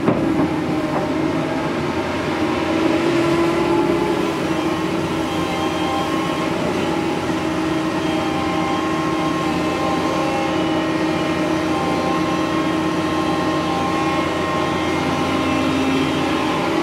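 Doosan DX225LCA hydraulic excavator working: its diesel engine running steadily under load, with a held hydraulic whine as the upper body swings round and the boom lifts, a little louder about three seconds in.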